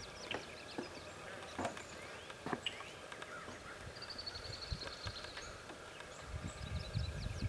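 Small songbirds calling in an open marsh meadow: a few sharp chips in the first seconds, then a quick high trill about four seconds in, with scattered faint chirps.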